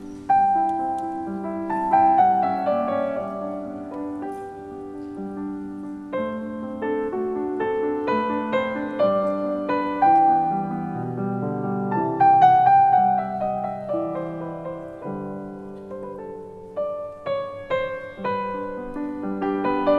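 Background piano music: a slow melody of struck notes that ring and fade.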